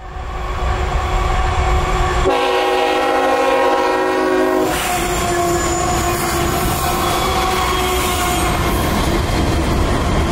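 Freight train passing close by: the locomotive's air horn sounds one long blast about two seconds in, lasting about two and a half seconds, over the steady rumble and rattle of the locomotive and freight cars rolling past.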